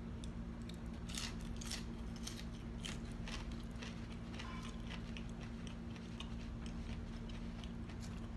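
A person chewing homemade french fries: many short, irregular soft crunches and mouth clicks, over a steady low hum.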